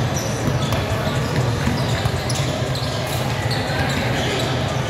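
Basketball being dribbled on a hardwood gym floor, with players' footfalls and voices, over a steady low hum.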